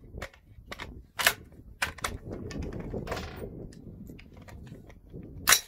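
AR-15 rifle being readied to fire: a run of sharp metallic clicks and clacks from the magazine and action being handled, with a short sliding rasp about three seconds in and a loud clack near the end.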